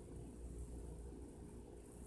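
Faint kitchen room tone: a steady low hum with a high hiss underneath.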